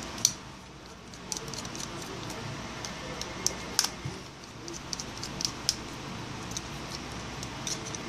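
Light, scattered clicks and taps of a small precision screwdriver working the screws of a smartphone's opened back, with plastic and metal parts clicking as the phone is handled.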